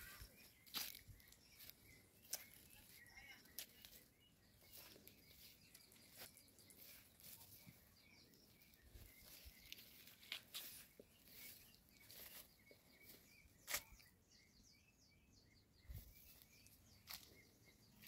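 Near silence: faint outdoor ambience with scattered soft clicks and a few faint, short, high chirps.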